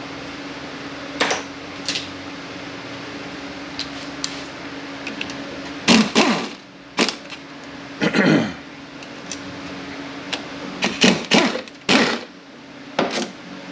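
Metal clinks and knocks of hand tools and loose transmission parts being handled on a workbench, with louder rattling bursts about six, eight and eleven seconds in, over a steady low shop hum.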